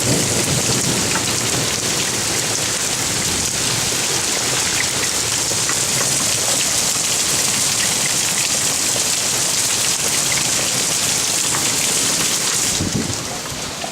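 Heavy rain pouring down in a steady, loud hiss during a hailstorm, with faint scattered ticks. About 13 seconds in, the sound drops sharply and turns muffled.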